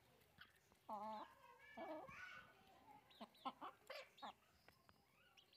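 Chickens clucking quietly as they peck at grain, with a few short calls, the loudest about a second in, and a run of short high chirps around three to four seconds in.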